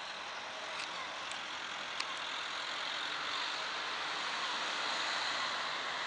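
Steady hiss of distant road traffic, with a few faint, short falling bird calls and a couple of small clicks in the first two seconds.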